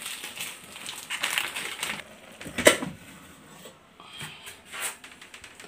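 Crackly handling noises and scattered light clicks, with one sharper knock about two and a half seconds in.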